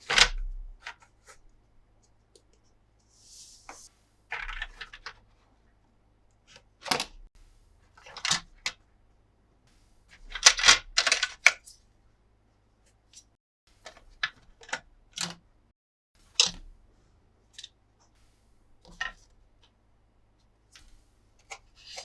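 Hard plastic toy pieces being handled, with scattered irregular clicks and clacks, a short rustle about three seconds in and a quick run of clicks about halfway through.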